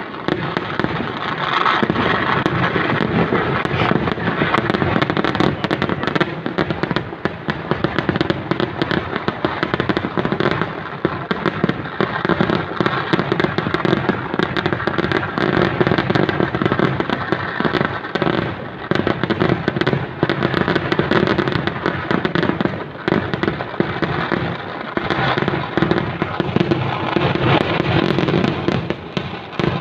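Kerala festival fireworks (vedikettu): a dense, unbroken barrage of firecracker bangs that run together into a continuous rattling din, without any pause.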